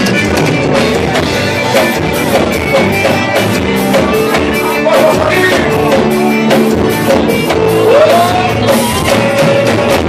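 Live country band playing, with a drum kit keeping a steady beat under a sung melody; the music stops suddenly at the very end.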